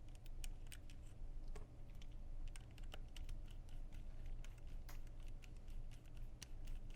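Light, irregular clicks and ticks of a screw being driven by hand to fix a carbine kit's rear section onto an airsoft pistol's lower.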